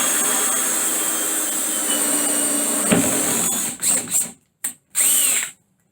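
Power drill spinning a hole saw through a hollow-core door, running steadily for about three and a half seconds, then given a few short trigger bursts that wind up and down before it stops.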